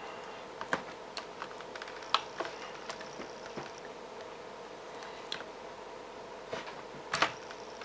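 Scattered light clicks and ticks of fingernails picking at old, stubborn sticky tape on a laptop's plastic keyboard deck, with a few sharper clicks, over a faint steady hum.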